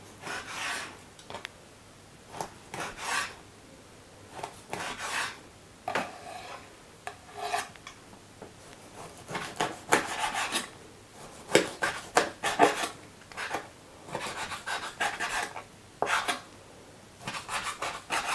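A kitchen knife cutting a skinned red fish fillet into pieces on a bamboo cutting board: irregular runs of rasping knife strokes through the flesh and against the wood, with short pauses between them.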